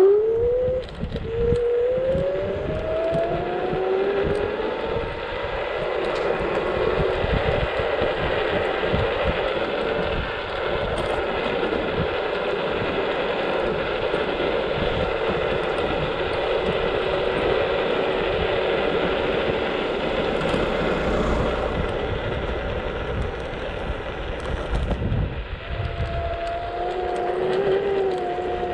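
A scooter riding along: its motor's pitch climbs over the first few seconds as it speeds up, then holds steady at cruising speed, over an irregular low rumble. Near the end the pitch rises once more and then falls away.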